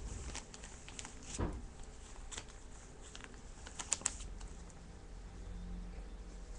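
Plastic zipper bag being handled, rustling and crinkling with scattered light clicks and taps as the pork and salt are worked into it; a soft thump about a second and a half in and a few sharp clicks about four seconds in.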